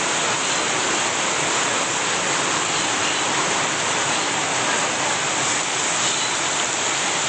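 Heavy rain and running water making a steady, even hiss.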